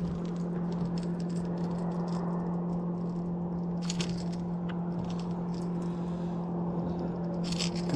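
Small clicks and rattles of a landed smallmouth bass thrashing with a topwater lure's hooks, over a steady low hum.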